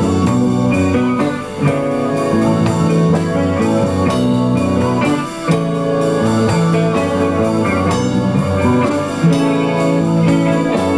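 Rock band playing an instrumental break in a song: electric guitar over a drum kit, with no singing.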